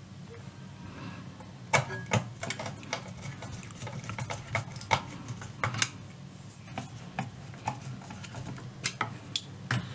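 Irregular small metallic clicks and taps of a screwdriver working the screw of a new capacitor's mounting clamp on a steel radio chassis, over a low steady hum.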